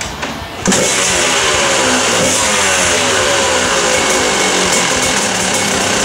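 Two-stroke single-cylinder engine of a 1992 Kawasaki KDX200 dirt bike, with a freshly rebuilt top end and a KTM muffler, firing up about half a second in. It starts with a burst of revs that fall away over a couple of seconds, then keeps running steadily.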